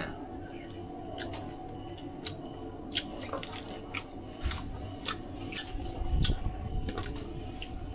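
Eating sounds of roast duck being chewed and pulled apart by hand: scattered small clicks and crunches, with a low bump about six seconds in.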